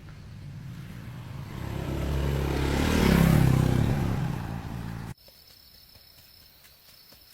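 A motor vehicle engine passing close by: it grows louder to a peak about three seconds in, eases off, then cuts off abruptly about five seconds in.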